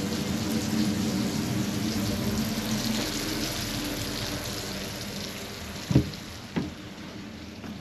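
Food sizzling in a frying pan, a steady hiss that slowly fades. Two sharp knocks come about six seconds in, half a second apart.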